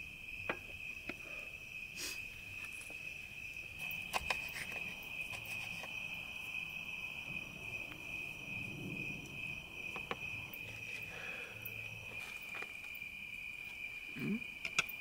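Crickets chirring in one steady, high-pitched drone, with a few scattered light clicks of forks against plates.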